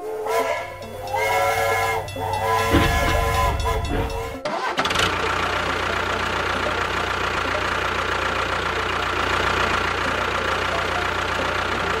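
Pitched, whistle-like tones for about four seconds, then, starting suddenly, the steady running sound of the toy tractor's small motor or engine, holding an even level.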